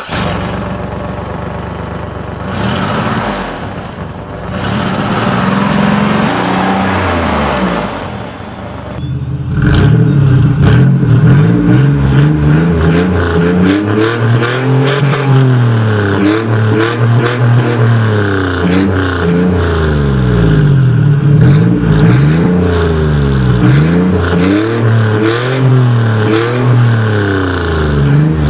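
A 1998 GMC Safari's 4.3 L Vortec V6 heard at the tailpipe. For the first nine seconds it runs through the stock exhaust, which has holes in it, with its pitch rising and falling a few times. Then it is louder through a Gibson swept-side cat-back exhaust with a Magnaflow high-flow catalytic converter, revved repeatedly with the revs climbing and dropping every second or two.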